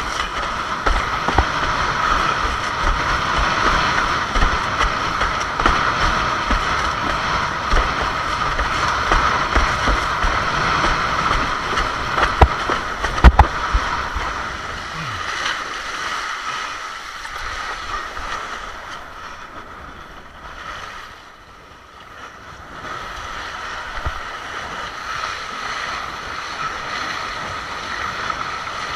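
Wind buffeting the microphone and water rushing under a Fanatic Bee windsurf board sailing fast through choppy water, with low rumbling and a sharp knock about 13 seconds in as the board slaps the chop. The noise drops for several seconds a little past the middle.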